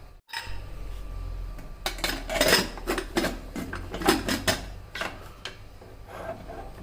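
Metal utensils clinking and scraping against a metal cooking pot, in a run of clatters from about two seconds in until about five and a half seconds.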